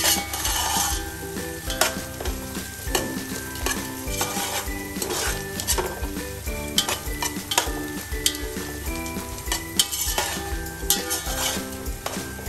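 Diced carrots and green beans sizzling in hot oil in a stainless steel pot, stirred with a metal spoon that scrapes and clicks against the pot many times. The vegetables are being fried before the potatoes go in.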